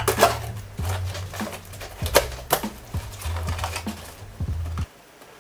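Cardboard shipping box being slit open along its taped seam and its flaps pulled back: a run of sharp scrapes and cardboard crackles, then rustling of paper packing as a hand reaches inside, stopping about five seconds in.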